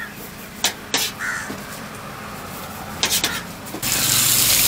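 A few sharp clicks and knocks of utensils at a steel counter, then, about four seconds in, a steady sizzle sets in as an egg fries on a hot flat-top griddle.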